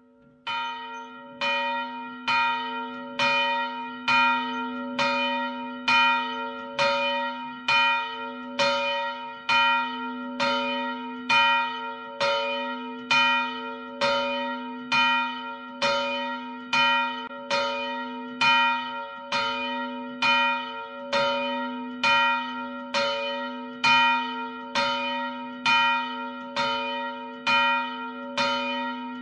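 A single church bell tolling, struck about once a second on the same note, with its low hum ringing on between strikes.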